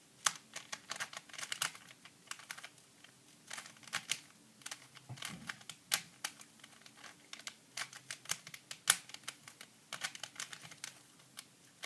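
Plastic Rubik's brand 3x3 cube being turned by hand to solve it: irregular clusters of sharp clicks as the layers snap round.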